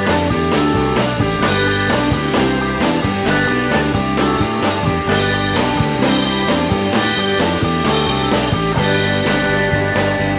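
A rock band playing an instrumental passage live: distorted electric guitars over a steady drum-kit beat.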